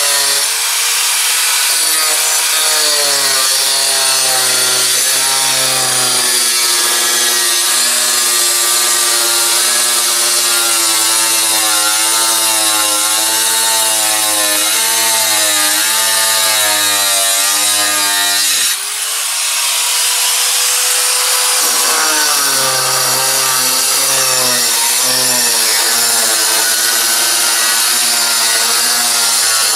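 Electric power saw cutting an asbestos-cement slate sheet: a loud, gritty cutting noise with the motor's pitch wavering under load. About 19 seconds in the cut eases off, the motor winds back up with a rising whine and runs free for a couple of seconds, then bites into the sheet again.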